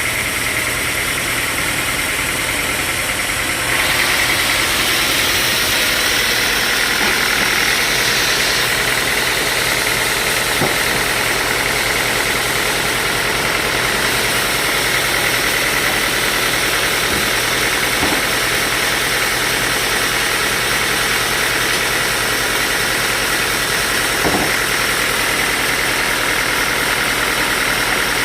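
A sawmill saw running steadily through timber, growing louder about four seconds in as the cut takes hold, with a few faint knocks later on.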